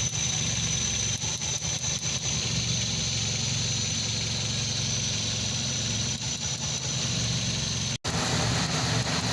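Nissan GA15 1.5-litre four-cylinder engine idling steadily with small irregular dips. The engine has a secondary misfire from a voltage leak on the number 4 plug wire.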